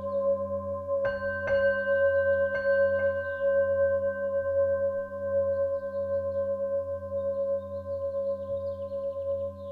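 Ambient music of sustained singing-bowl tones over a slowly pulsing low drone. Four bell-like strikes, in two pairs, come between about one and three seconds in.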